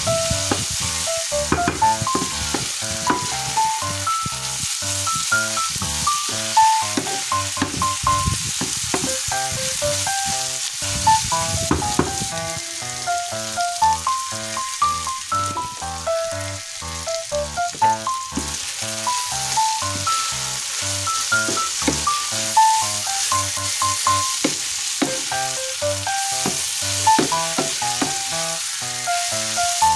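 Beef and string beans sizzling in a hot frying pan, with a wooden spatula stirring and scraping the pan again and again. Light background music with a simple melody plays over the frying.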